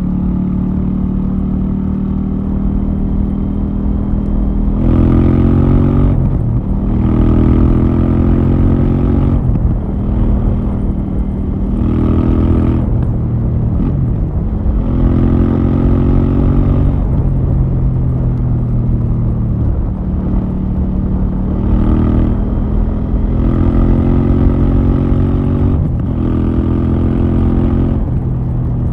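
KTM 790 Duke's parallel-twin engine through its stock exhaust. It runs steadily for the first few seconds, then the pitch climbs again and again in stretches of a second or two, each one breaking off and dropping back before the next.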